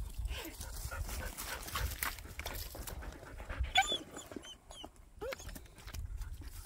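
Dog panting close to the microphone. A short high squeak about four seconds in is the loudest moment, and a fainter falling squeak follows about a second later.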